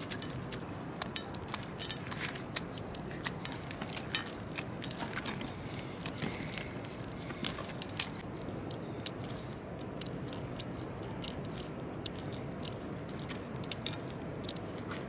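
Dried maize kernels being rubbed off the cob by hand and dropping into a woven basket: irregular dry crackling clicks, thickest in the first few seconds and sparser later.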